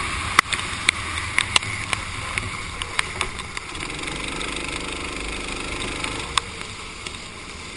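Go-kart running on a flooded, rain-soaked track, heard through a waterproof action-camera housing: a steady hiss of tyre spray and water with scattered sharp clicks, the engine low underneath. It gets gradually quieter toward the end.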